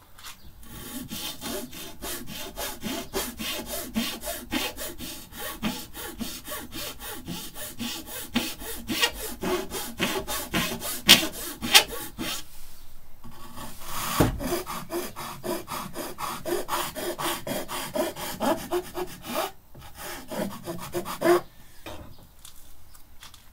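Small hand file rasping back and forth on balsa wood in quick, even strokes, filing a dolls-house window opening out to the pencil line. The filing stops briefly twice, with a single knock about fourteen seconds in.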